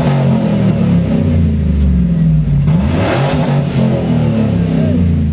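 A vehicle engine revving up and down, loud, with a quick climb in pitch about three seconds in.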